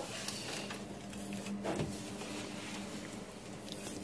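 Rubbing and rustling handling noise from a handheld camera being moved around, with a brief knock about two seconds in, over a faint steady hum.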